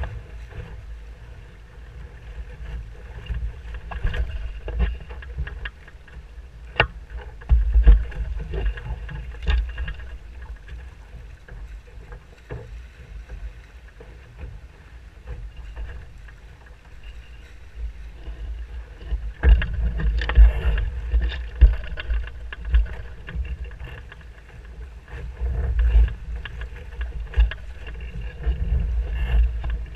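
Musto Skiff sailing dinghy beating upwind through chop: water rushing along the hull with repeated sharp slaps of waves against it, under a heavy, gusty rumble of wind on the boat-mounted camera's microphone. The rumble swells about eight seconds in, and again around twenty and twenty-six seconds.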